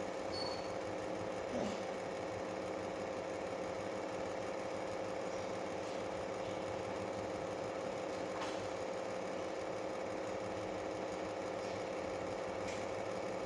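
Steady mechanical hum with a constant mid-pitched tone, unchanging throughout, with a few faint clicks.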